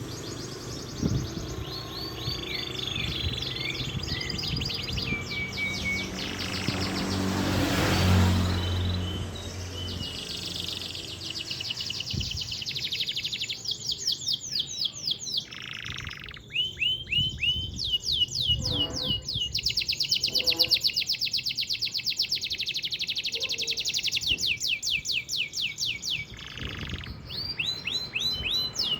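Domestic canary singing a long rolling song: fast trills of rapidly repeated down-sweeping notes, one tour running into the next with only brief breaks. About eight seconds in, a louder swell of noise with a low hum rises and fades behind the song.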